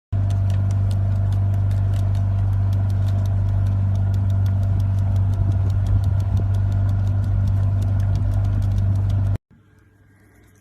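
Steady machine hum with a light ticking about five times a second; it cuts off suddenly near the end.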